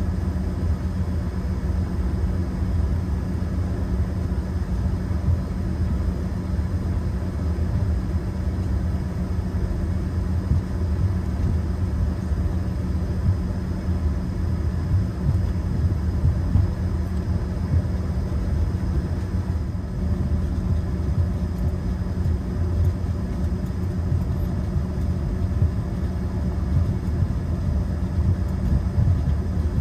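Cabin noise of an Embraer ERJ-145 taxiing: a steady low rumble with the tail-mounted Rolls-Royce AE 3007 turbofans running at low power and a faint steady whine above it.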